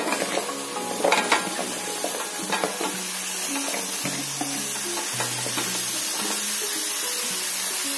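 Chunks of raw pumpkin dropping into a kadai of spices frying in hot oil. The pieces land with a clatter of knocks in the first few seconds, loudest about a second in, over a steady sizzle that continues after they stop.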